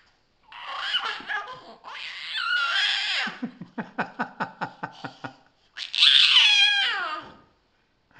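Baby laughing hard: squealing belly laughs, a run of short rhythmic 'ha-ha' pulses about four to five a second in the middle, and a loud long squeal of laughter falling in pitch about six seconds in.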